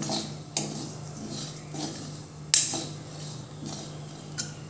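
Metal spoon scraping and clinking against a black kadai while stirring whole spices dry-roasting in it, with the seeds rattling. A few sharp clinks stand out, the loudest about two and a half seconds in.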